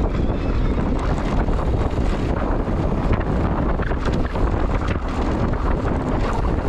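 Wind rushing over the camera microphone of a mountain bike on a trail, with a steady low rumble and scattered small clicks and rattles throughout.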